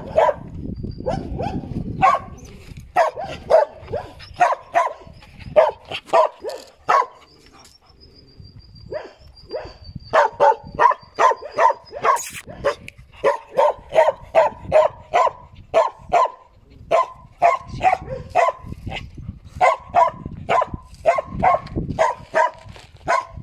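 A dog barking over and over in quick runs of about two barks a second, with a short break about eight seconds in.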